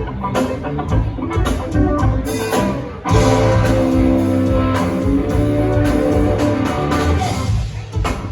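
Live rock band playing an instrumental passage, guitar over drums, recorded from the audience; it grows louder about three seconds in with sustained guitar chords.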